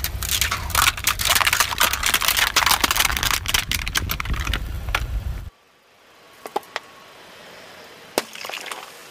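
Car tyre rolling over plastic cups of liquid: a dense run of cracking and crackling plastic over a low rumble, cut off abruptly about five and a half seconds in. After that it is much quieter, with a few sharp clicks and a short hiss near the end.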